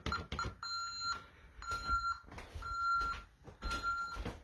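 Honeywell Vista 15P alarm keypad beeping. A few quick short beeps come at the start, then a steady beep about half a second long repeats about once a second.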